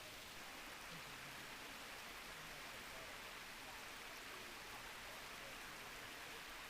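Faint, steady rush of a mountain stream.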